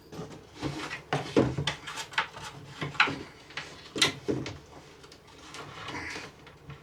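Knocks and bumps of an upper kitchen cabinet being handled and lifted into place against the wall. There are about half a dozen sharp knocks in the first four seconds, then quieter rubbing and shuffling.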